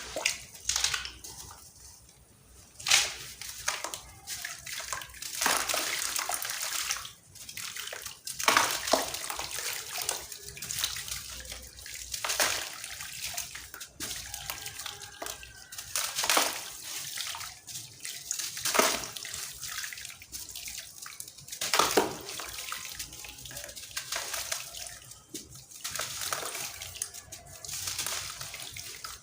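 Chunks of sand cement being crushed and crumbling, an irregular crunching with a sharper crack every few seconds.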